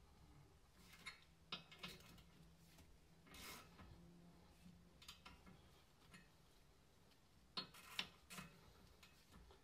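Faint, scattered clicks and taps from hands handling the conversion studs on a bare wheel hub, a few at a time with gaps between, the loudest near the end.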